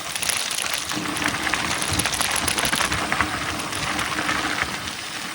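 Mountain bike coasting fast downhill on a dirt trail: the rear freewheel hub buzzing with a steady ticking whirr, tyres on dirt, and the chain and frame rattling over bumps.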